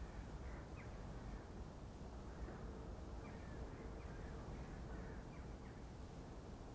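Faint short bird calls, repeated every second or so, over a steady low rumble of background noise.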